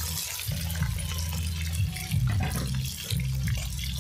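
Cut potatoes frying in hot oil: a steady sizzle with small crackles, over a steady low rumble.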